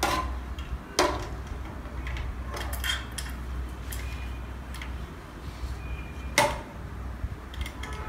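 Small metal clicks and knocks of hardware being fitted: screws and nuts and the sheet-metal case of a power supply handled against a 3D printer's metal frame. The sharpest knocks come about a second in and about six and a half seconds in, over a steady low hum.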